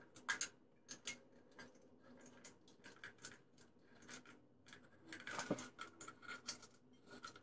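Caulking gun squeezed to run a bead of silicone along a tile corner: a series of faint, irregular clicks and ticks from the trigger and plunger rod.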